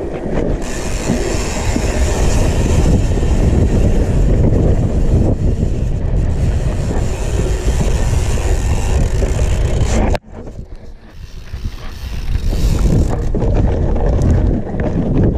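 Mountain bike riding fast down a loose dirt and sand trail: wind buffeting the camera microphone over the rumble and rattle of the tyres and bike on the rough ground. The noise suddenly drops about ten seconds in, then builds up again.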